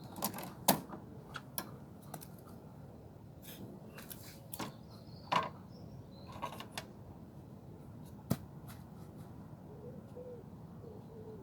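Tools and lawnmower parts being handled: a scattering of separate sharp clicks, clinks and knocks. The loudest come about a second in, near the middle and about eight seconds in.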